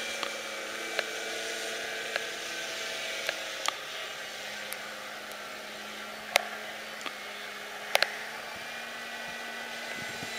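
Electric motor and propeller of a HobbyKing Yak 54 RC aerobatic plane in flight: a steady hum of a few held tones that drift slightly in pitch, over a hiss. A handful of short sharp clicks cut through it, two close together about eight seconds in.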